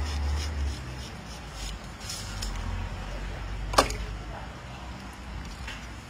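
Knife working through the flesh of a hanging monkfish carcass, with faint scraping strokes and one sharp knock a little under four seconds in, over a steady low hum.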